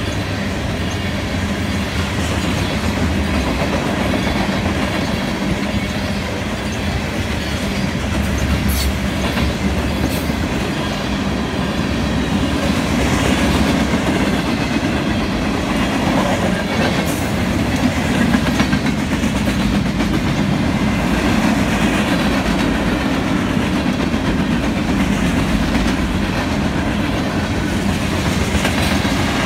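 Freight cars of a mixed freight train (covered hoppers, a boxcar, tank cars) rolling past close by: a steady rolling noise of steel wheels on the rails, with a few sharp clicks around nine and ten seconds in.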